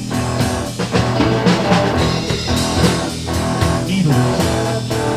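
Blues-rock music with electric guitar and drums playing an instrumental passage between sung lines.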